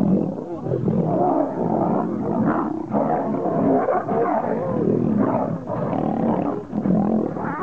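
Two male lions fighting, roaring almost continuously with only brief breaks.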